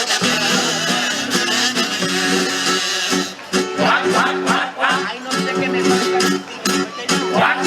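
Acoustic guitars playing the instrumental introduction to a carnival chirigota pasodoble, with sharp rhythmic strummed chords from about three seconds in.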